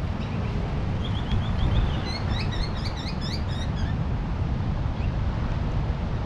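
Wind rumbling on the microphone over a steady rush of surf. A bird chirps a quick run of short rising notes about a second in, then a louder, faster series of chirps for about two seconds.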